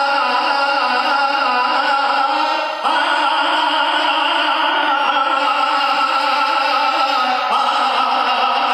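Music from a stage play: a voice holding long, wavering notes over steady instrumental accompaniment, with a new phrase starting about three seconds in and another near the end.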